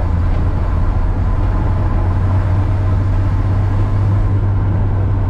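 Inside the cab of a 1993 Ford F150 pickup driving on a gravel road: the 300 cubic inch inline-six engine runs at steady cruising speed with a steady low drone, mixed with tyre and road noise.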